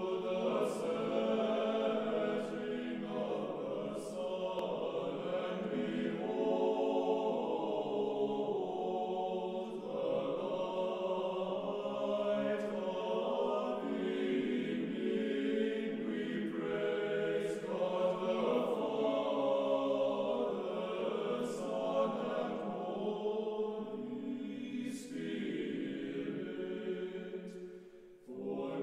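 Choir singing slow Orthodox liturgical chant in long, held phrases, with a brief dip in loudness near the end.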